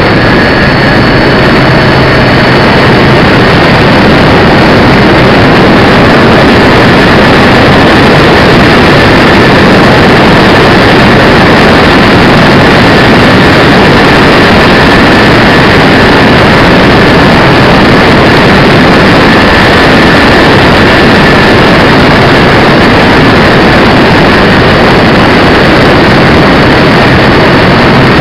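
Radio-controlled DC-6B scale model's four motors and propellers running steadily in flight, mixed with rushing airflow, heard from a camera mounted on the model; a loud, unchanging drone with a thin steady whine above it.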